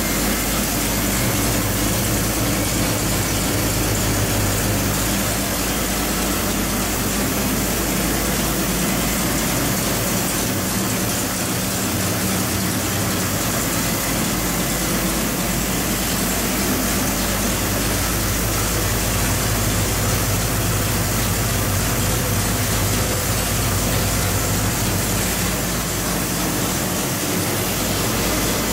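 A 730 hp big-block Chevrolet 572 cubic-inch V8 running steadily at idle on an engine dyno, with no revving.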